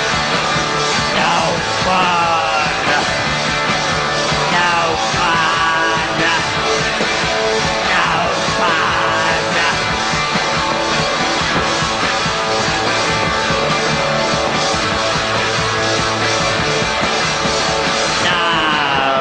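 Punk rock band playing an instrumental break: an electric guitar lead with repeated sliding pitch bends over bass and drums, at a steady loud level.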